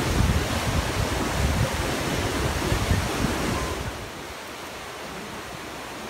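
Whitewater rushing over boulders below a waterfall, a loud steady noise with gusts of wind buffeting the microphone. About four seconds in it drops to a quieter, even hiss of more distant falling water.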